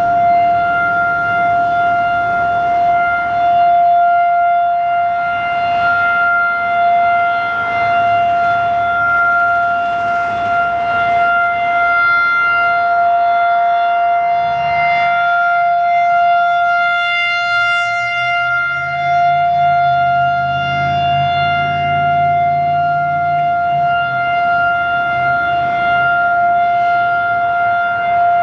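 Federal Signal 2001 electromechanical outdoor warning siren sounding a steady tone at full speed during its test: one held pitch, with loudness rising and falling slightly as the rotating horn sweeps past.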